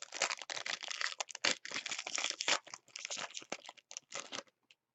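Foil wrapper of a trading-card pack being torn open and crinkled, a dense run of crackling that stops about four and a half seconds in.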